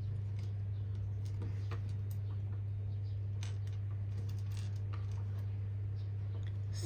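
Tiny plastic building bricks clicking and tapping on a wooden table as they are picked up and pressed together, a scatter of light irregular clicks over a steady low hum.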